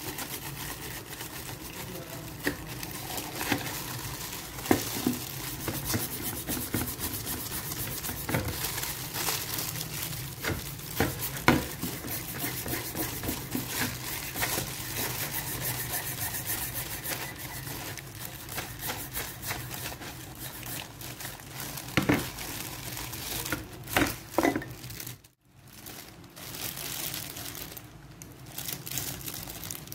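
Toothbrush scrubbing rust off an old adjustable wrench in a wet plastic basin, a quick run of scratchy strokes, with the plastic-bag gloves crinkling and a few louder knocks. The scrubbing breaks off briefly near the end.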